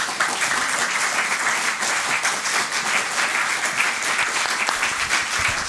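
Audience applauding steadily: the clapping of many hands at the close of a talk.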